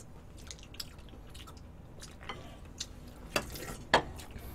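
Close-miked eating sounds: quiet chewing with scattered small clicks and taps, and two sharper clicks near the end.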